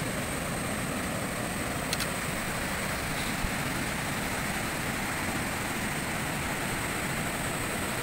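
Steady rush of a fast mountain river pouring over rapids and boulders, with a thin steady high tone above it.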